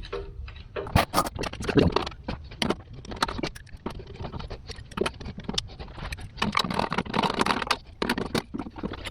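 Metal tools and hardware being handled: a run of irregular clinks, taps and scrapes.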